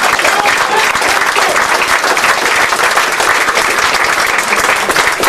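Audience applauding steadily, many hands clapping at once, as a speaker is thanked at the end of his talk.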